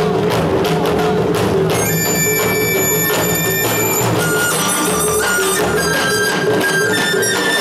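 Live amplified music from a stage band led by drums: quick, even drum strokes for about the first second and a half, then held high notes over a steady low drone.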